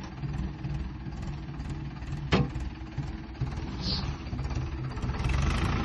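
Mahindra Arjun tractor's diesel engine running at low speed with a steady low throb, growing louder near the end. A sharp click comes about two seconds in.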